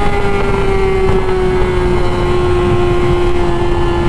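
Yamaha R6 inline-four sportbike engine screaming at high revs under steady throttle, its pitch easing slowly down, over heavy wind rush.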